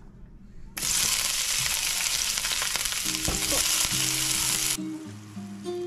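Diced red pepper dropped into hot oil in a stainless steel frying pan, sizzling loudly. The sizzle starts suddenly about a second in and stops abruptly about a second before the end.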